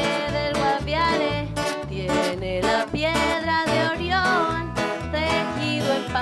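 Music with plucked string instruments over a steady, pulsing bass beat.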